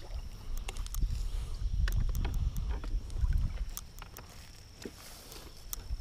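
Wind and handling rumble on the microphone in a kayak, rising and falling, with scattered sharp ticks and knocks as a largemouth bass is dealt with.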